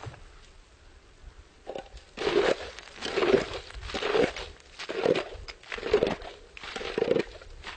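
Lake ice being crunched and scraped with a hand tool: about six rough strokes roughly a second apart, starting about two seconds in, as a hole is worked open in the frozen surface.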